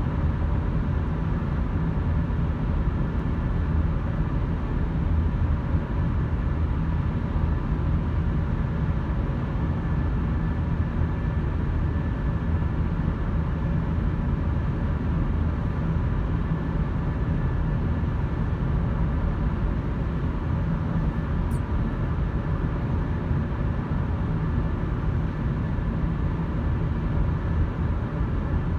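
Steady road and engine noise of a moving car, an even low rumble with no thunder.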